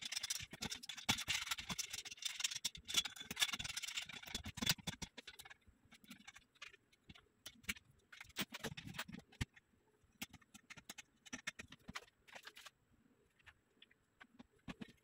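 Hands working on a metal bed frame: dense scratching and scraping for about five seconds, then scattered light clicks and taps.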